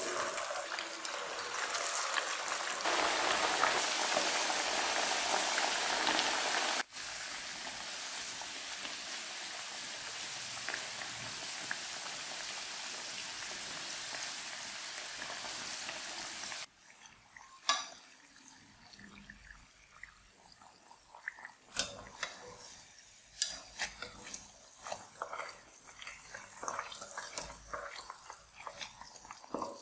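Potato and chicken breast fries deep-frying in hot oil, a steady loud sizzle. It drops in level suddenly about 7 s in and cuts off about 17 s in. Scattered light crisp clicks and crackles follow.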